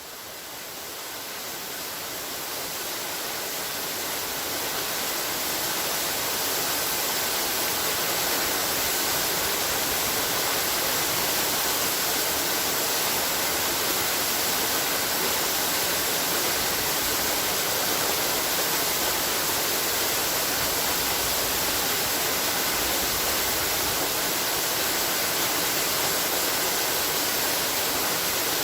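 Waterfall: a steady rush of falling water, fading in over the first few seconds and then holding even.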